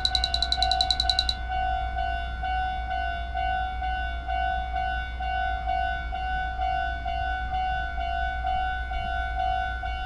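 Electronic railroad-crossing warning sound from an animation: a steady, siren-like tone with several overtones. For about the first second a rapid, high-pitched ringing pulse plays over it, then cuts off.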